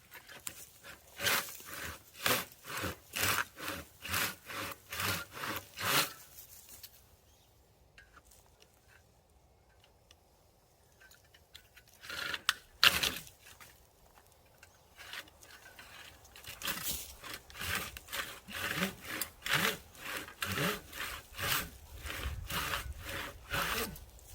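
Hand saw cutting into a fire-burnt oak trunk, in rhythmic back-and-forth strokes about two a second. The sawing stops for several seconds in the middle, with a couple of sharper strokes, then resumes slightly faster.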